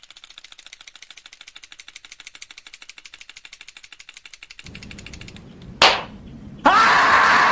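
Comedy sound effects: rapid, even clicking at about ten a second for some five seconds, then a sharp hit and, near the end, a loud scream whose pitch falls.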